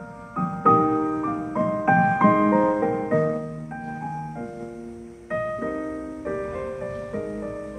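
Slow, gentle piano music: a melody over chords, each note struck and then fading away.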